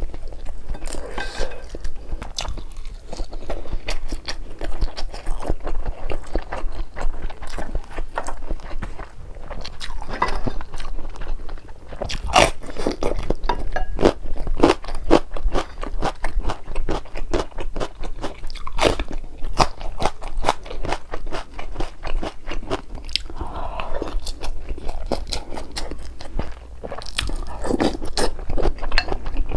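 Close-miked chewing and wet mouth clicks of someone eating, with sharper crunching bites now and then.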